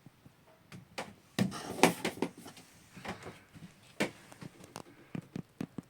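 Scattered wooden knocks and clunks from someone moving about a small boat cabin and handling its fittings. The loudest cluster comes about a second and a half in, with lighter taps after it.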